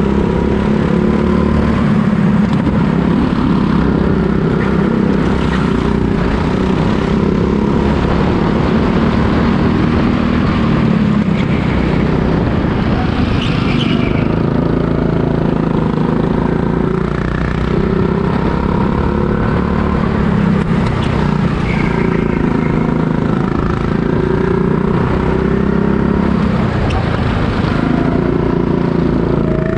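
Go-kart engine running hard, its pitch rising and falling over and over as the throttle comes on and off.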